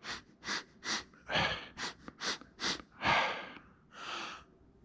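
A man breathing sharply in quick succession, about two short breaths a second, then two longer breaths near the end, as he sips strong whiskey and feels its burn in his nose.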